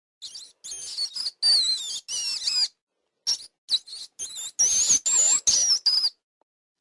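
Rats squeaking: a string of short, high-pitched squeaks with wavering pitch, coming in bursts with brief gaps and stopping about six seconds in.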